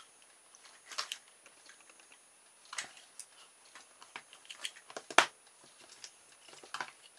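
Orange plastic cable tie being pulled tight with pliers around a barbecue-skewer joint: scattered short plastic clicks from the tie's ratchet and the handling, the loudest a sharp click about five seconds in.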